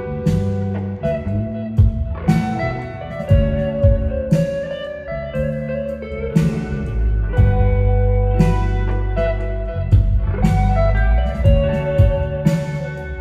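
Instrumental music played live: guitar over a deep bass line, with sharp hits every second or so.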